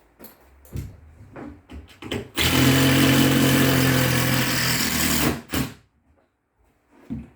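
A few light knocks and clicks, then a power drill running steadily for about three seconds.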